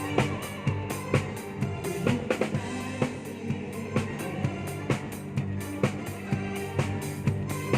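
Live band playing, with a drum kit keeping a steady beat of kick and snare hits over bass and sustained chords.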